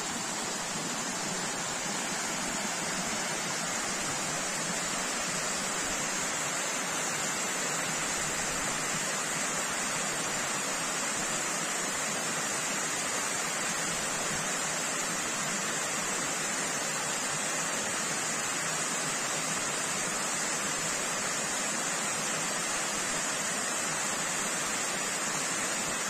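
Tiered waterfall: water cascading down a rock face in a steady, unbroken rush.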